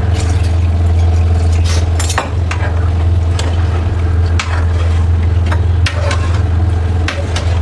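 Tap water poured from a stainless steel mug into a pan, then a metal spoon stirring in the pan with a series of sharp clinks, over a steady low hum.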